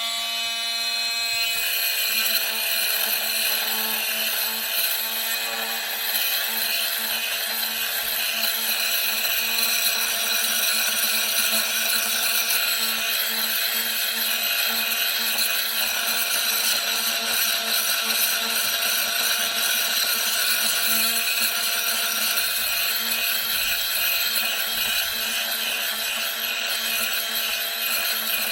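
Makita TM30D cordless oscillating multi-tool running at a steady speed, its blade sawing. It gives a constant buzzing hum with a harsh high rasp from the cut.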